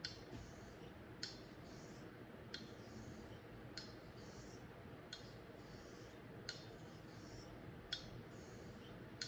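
Straight razor being honed on a Japanese natural finishing stone with slurry: a faint swish on each stroke and a sharp click roughly every 1.3 seconds as the spine turns over on the stone.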